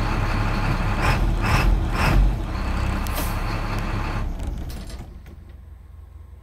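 IC school bus diesel engine running, with three short hisses of air about half a second apart. About four seconds in, most of the running sound falls away and only a low rumble is left.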